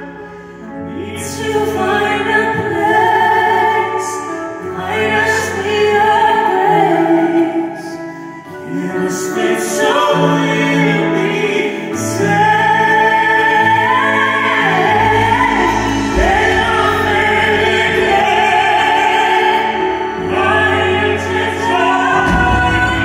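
Live duet: a woman and an operatic male tenor singing long, sustained phrases into microphones, accompanied by grand piano and a band with drums, bass and keyboards.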